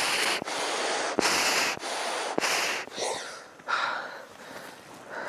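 A person breathing hard and fast, a quick rasping breath in or out about every half second for about three seconds, then the breaths fade to faint hiss.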